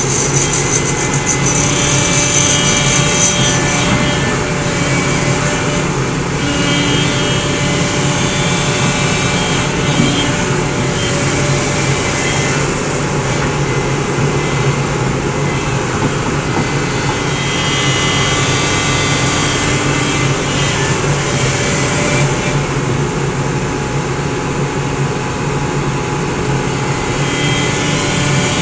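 SANY crawler excavator's diesel engine running steadily under digging load. A higher whine from the hydraulics comes and goes every few seconds as the boom and bucket work.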